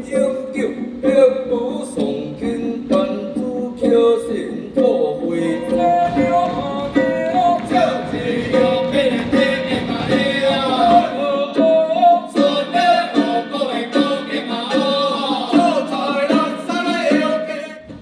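Vocal music: several voices singing together, with little or no instrumental backing. It cuts off suddenly near the end.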